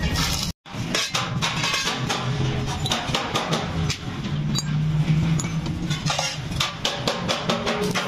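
Background music with a drum beat, cutting out for a moment about half a second in.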